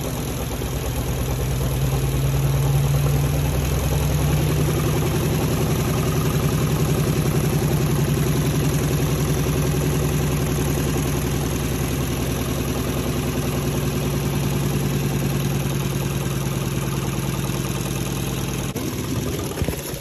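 Spin tub of a Von 10 kg twin tub washing machine spinning a wet duvet: a steady motor hum that cuts off near the end.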